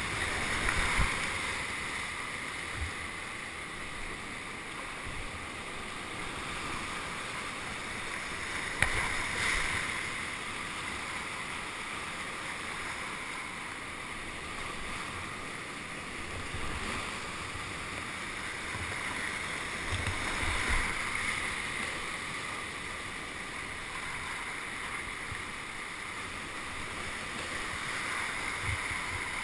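Rushing whitewater, a continuous even noise that swells and eases every several seconds, with a few dull knocks, the sharpest about nine seconds in.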